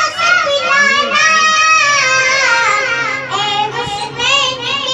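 A young boy singing an Urdu naat (devotional song in praise of the Prophet) unaccompanied into a microphone, in long, high, drawn-out lines with wavering, ornamented pitch.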